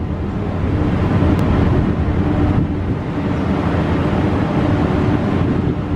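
Strong wind buffeting the microphone at sea in heavy weather, over a deep continuous rumble with a faint steady hum underneath.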